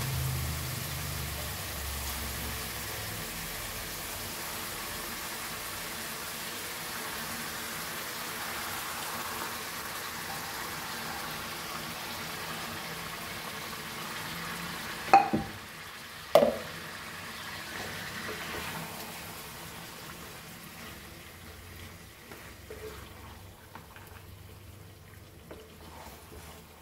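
Marinated raw chicken pieces sizzling in hot oil in a kadai, a steady hiss that fades over the second half. Two sharp knocks come about halfway through, and near the end a spatula stirring the meat makes light scrapes and clicks against the pan.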